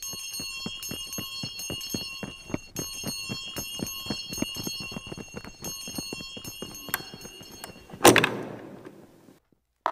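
A bell ringing steadily over quick, even taps, about five a second. About eight seconds in comes one loud crash that rings on.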